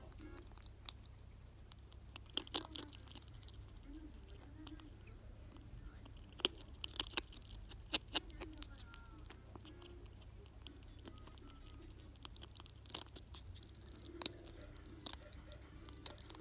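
Ferret crunching dry kibble pellets: sharp crunches in scattered clusters with quieter chewing between them, the loudest crunch near the end.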